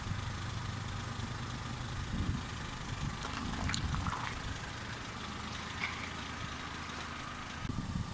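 Car engine idling with a steady low hum and a few faint light knocks. Just before the end a louder, irregular low rumble starts.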